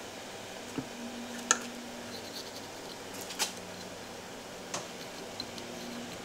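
A handful of light, sharp clicks and ticks, about five spread over a few seconds, as a metal scriber is worked around the edge of a metal plate held against the bandsaw's housing, over a faint steady hum.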